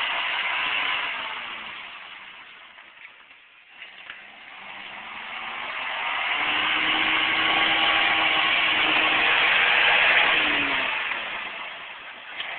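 Lifted Suzuki 4x4's engine revving as it works through snow in four-wheel drive with both hubs locked. The sound fades to quiet a few seconds in, then builds again to its loudest near the end, rising in pitch just before it drops away.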